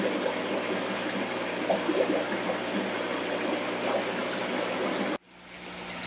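Aquarium water trickling and rushing steadily, stopping abruptly about five seconds in.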